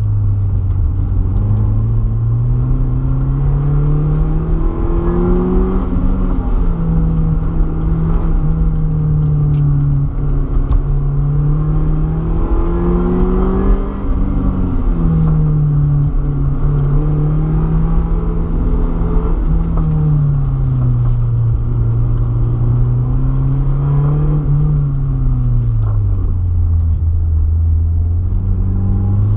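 BMW E36 318ti's four-cylinder engine driven hard through an autocross slalom, revs repeatedly climbing and dropping as the car accelerates, lifts off and shifts between cones. A steady low rumble of road and tyre noise runs underneath.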